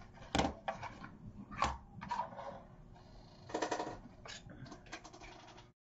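Metal scissors snipping ribbon with a few sharp clicks, then a short clatter as they are set down on the table, followed by light handling clicks. The sound cuts off abruptly near the end.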